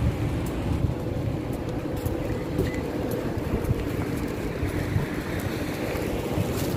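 Steady street noise: a low rumble of road traffic with a faint steady hum running under it.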